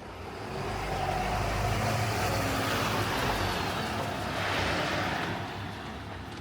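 A motor vehicle driving past close by. Its engine and tyre noise swells about a second in and fades away near the end.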